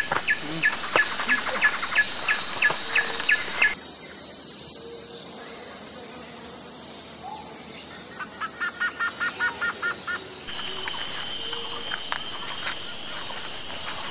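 Forest ambience: a bird repeats a short chirp about three times a second, over a steady insect hum. Partway through, the background turns abruptly quieter and a quick run of faster chirps is heard. Near the end a steady high insect drone and hiss take over.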